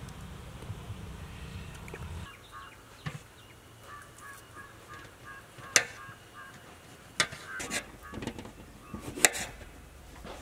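Small kitchen knife cutting tomatoes on a steel plate: a few sharp knocks of the blade against the metal, with birds calling in the background.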